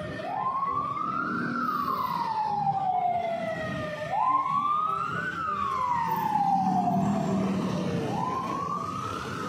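A siren wailing over street traffic. It rises quickly in pitch, then falls slowly, repeating about every four seconds.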